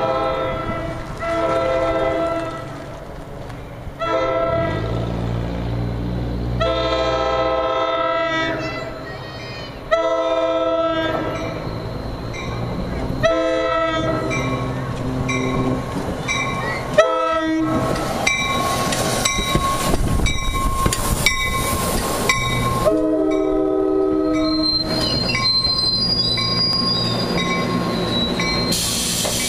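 NJ Transit commuter train pulling into a station, its horn sounding a series of blasts as it approaches. The passenger cars then roll past with wheel clatter and a thin squealing tone as the train slows to a stop.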